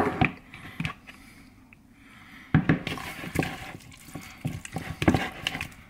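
Raw chicken wings being squished and tossed by hand in juice and seasoning in a plastic bowl: wet squelching and slapping, sparse at first and busy from about halfway through.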